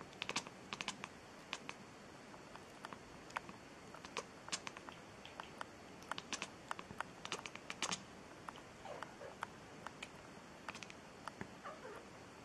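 Domestic cat chattering: short runs of quick, sharp jaw clicks, with a couple of faint chirps in the second half.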